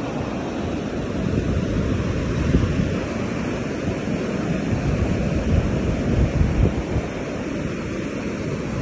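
Wind buffeting the microphone in a fluttering rumble over the steady wash of small waves breaking on a sandy beach.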